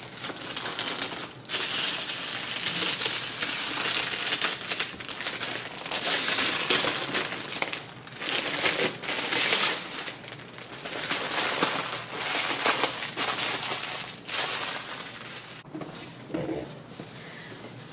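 Plastic packaging crinkling and rustling in uneven bursts as it is handled and pulled off a new cutting machine.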